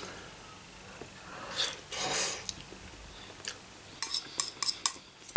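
Someone eating a bowl of ramen noodles: a short breathy slurp about two seconds in, then a quick run of small clicks of cutlery against the bowl near the end.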